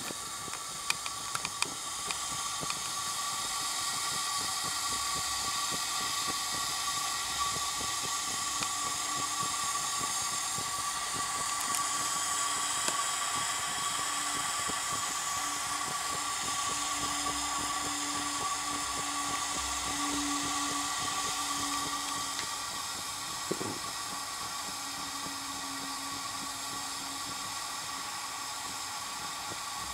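Wilesco toy steam engine's boiler hissing steadily as it comes up to steam, with a steady high note running through the hiss and a few light ticks in the first seconds.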